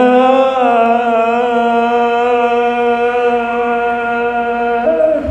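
A man's voice chanting one long, held note of a maqtal lament, amplified through a hand-held microphone. The pitch stays nearly level and breaks off near the end.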